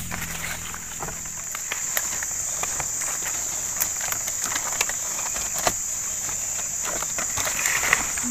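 Forest insects keep up a steady, high-pitched drone, with scattered irregular clicks and snaps over it.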